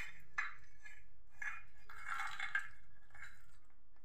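Dry-roasted almonds and walnuts sliding off a steel frying pan and clinking into a glass bowl, in several short bursts with a longer clatter about two seconds in.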